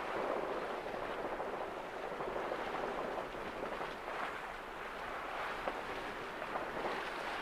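Sea water rushing and hissing past a sailing yacht's hull as it sails along, mixed with wind: a steady wash of noise.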